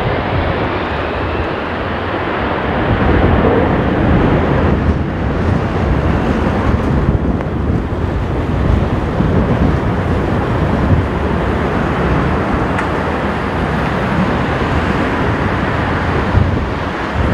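Jet engines of an Airbus A330-300 at high thrust as it climbs away, a steady, even rumble with no clear pitch. Strong wind buffets the microphone throughout.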